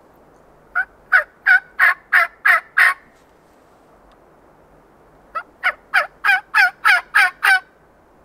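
Turkey call sounding two runs of hen yelps, seven notes and then eight, about three a second, each note dropping in pitch. It is a locator sequence meant to draw an answering gobble from a tom.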